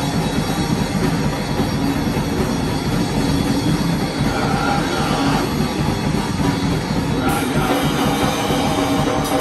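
A rock band playing live and loud: electric guitar, bass and a drum kit, with a singer's voice over them.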